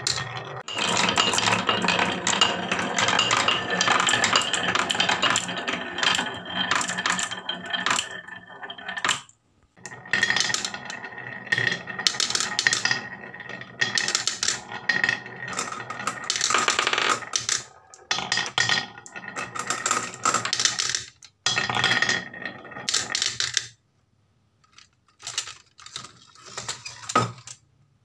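Small balls rolling and clattering down a wooden wave-shaped marble run slope and dropping into the plastic bed of a toy dump truck. A dense rattle runs for the first nine seconds or so, then comes in bursts of clatter with short gaps between.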